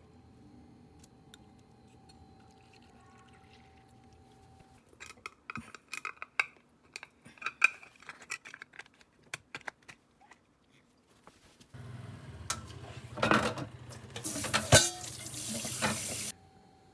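Dishes and utensils clinking and knocking in a kitchen, then a tap running into the sink for about four seconds with a few knocks, shut off suddenly near the end.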